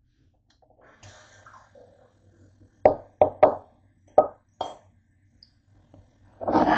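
Hard kitchen items, such as dishes and utensils, being handled: five sharp knocks and clinks in quick succession starting about three seconds in, then a louder, longer clatter near the end.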